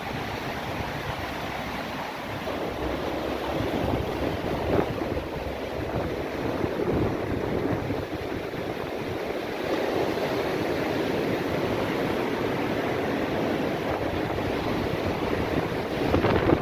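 Sea waves surging and breaking on the shore, with wind buffeting the microphone.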